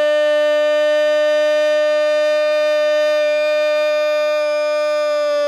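A commentator's long, drawn-out shout of "gol", one single vowel held at a steady pitch for several seconds as the goal goes in.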